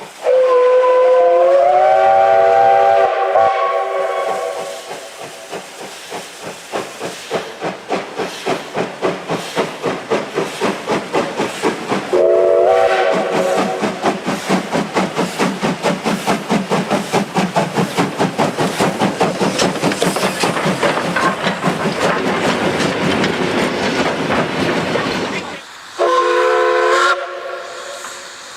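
Steam locomotive sounding its chime-like steam whistle in a long blast, then chuffing as it pulls away, the exhaust beats quickening steadily. Two shorter whistle blasts follow, one about halfway through and one near the end.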